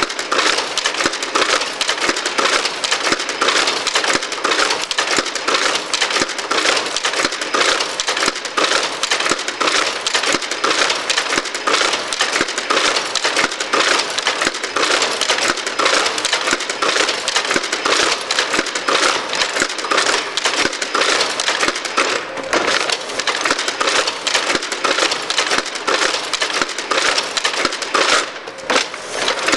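1927 Smyth book-sewing machine running: a fast, steady mechanical clatter that dips briefly near the end.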